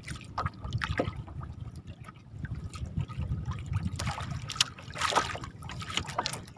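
A gill net being hauled by hand out of the lake over a boat's side: water trickling and splashing off the mesh, with the sharpest splashes a little before and after five seconds in, over a steady low rumble.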